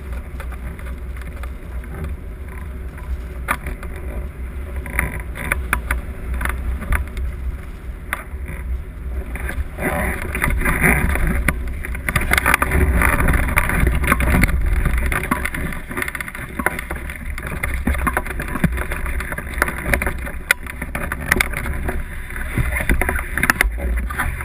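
Wind rushing and buffeting the microphone of a camera mounted on a hang glider as it glides low down a grassy training slope, swelling for a few seconds midway. Scattered clicks and knocks from the glider's frame and sail run through it.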